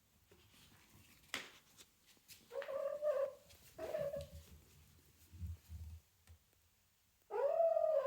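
A domestic cat meowing: two short meows about two and a half and four seconds in, then a longer, drawn-out meow starting near the end. A few faint knocks lie between them.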